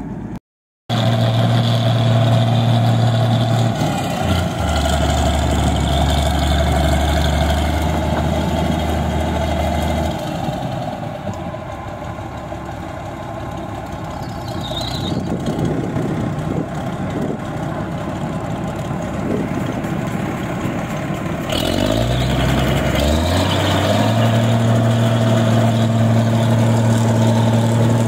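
New Holland Clayson 1545 combine harvester at work, its diesel engine running under load with the cutter and threshing machinery going. The engine note shifts several times, then rises about four-fifths of the way through and holds at a steady higher pitch.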